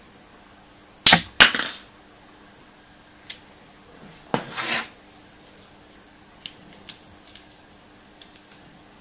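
Small plastic toy parts and capsule being handled: two sharp snaps about a second in, a single click, a short crinkling rustle around four seconds in, then a few light clicks.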